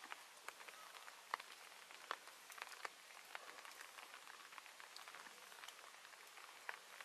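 Faint hiss with sparse, irregular soft ticks and clicks, a few each second.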